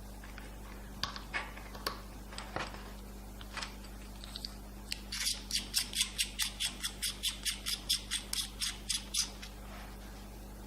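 A few small plastic clicks from handling the BOYA BY-M1 lavalier's battery housing while its battery is fitted. About halfway through comes a fast, even run of about twenty short squeaky scrapes, roughly five a second.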